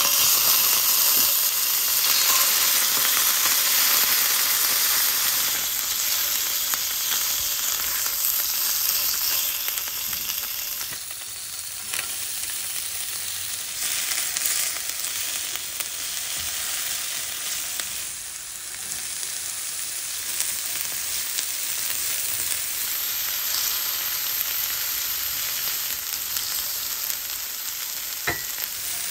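Oil sizzling and frying in a cast-iron skillet as a chicken thigh, then chopped shallot and red pepper, cook in it, with a few light taps and scrapes of stirring. The sizzle is loudest in the first few seconds after the chicken goes into the hot oil.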